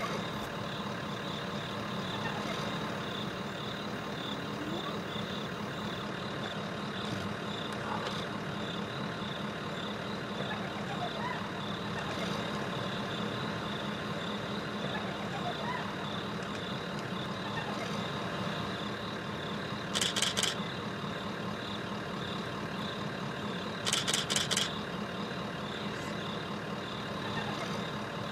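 A vehicle engine idling steadily, with a constant high whine over it. Twice in the second half, short bursts of rapid clicking cut through.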